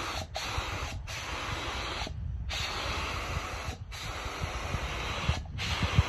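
Gravity-feed paint spray gun hissing with compressed air as it sprays paint onto an engine cover. The hiss comes in passes broken by several short pauses, the longest about two seconds in.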